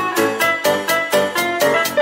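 Upbeat background music with a steady beat, about four notes a second.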